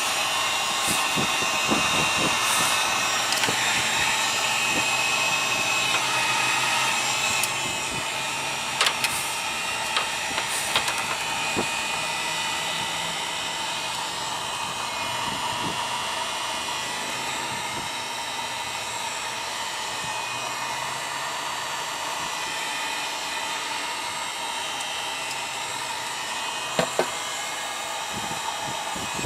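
Electric heat gun running steadily, a continuous blowing hiss with a constant whine, heating a fuel line so it can be pushed onto a snug fitting. A few light clicks and knocks come about 9 to 11 seconds in and again near the end.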